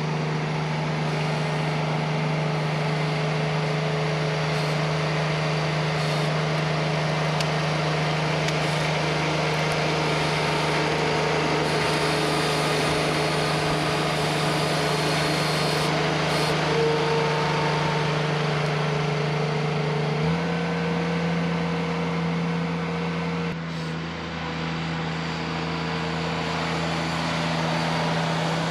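Ventrac compact tractor's engine running steadily at high speed, its pitch stepping up slightly about two-thirds of the way through.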